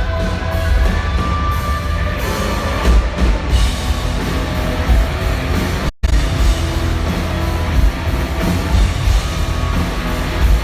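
Loud live rock band: distorted electric guitar over drums and bass, played through a big stage PA. The sound cuts out for an instant about six seconds in.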